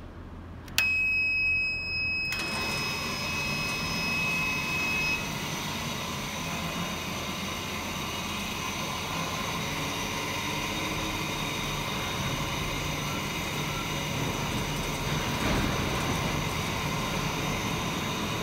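Induction brazing machine switched on with a click, sounding a steady high-pitched tone for about four seconds, while it and its water-cooling unit's fan settle into a steady running noise.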